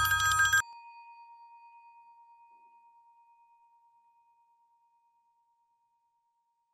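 A bell rings sharply for about a second with a rattling clang. Then one clear tone rings on alone, pulsing as it fades away over about three seconds.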